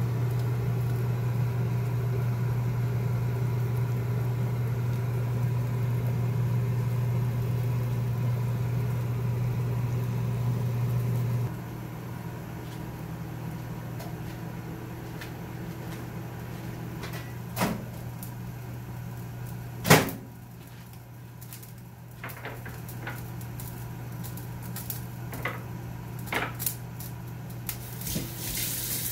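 Steady low electrical hum of a kitchen appliance, which drops to a quieter hum about eleven seconds in. A few clicks and knocks follow, with one sharp knock about twenty seconds in.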